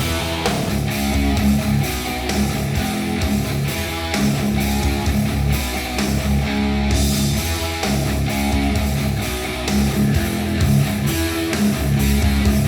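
Instrumental rock music with strummed electric guitars, bass and drums, played back through a small studio monitor speaker and picked up by microphones in the room.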